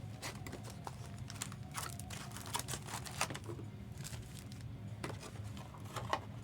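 Crinkling and rustling of trading card packs and cards being handled, with many small irregular clicks and snaps.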